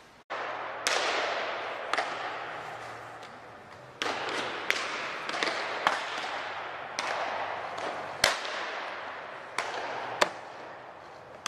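Baseballs smacking into leather gloves during a game of catch: about a dozen sharp pops at uneven intervals, each with a long echo in a large indoor hall.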